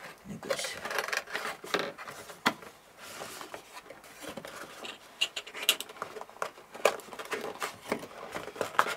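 Cardboard packaging being handled: the flaps and inner insert of a small accessory box pulled open and shifted by hand, in scattered rustles, scrapes and light clicks.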